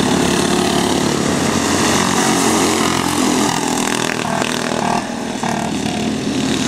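Several racing go-kart engines running hard as the karts pass on the track, a buzzing engine note that rises and falls in pitch.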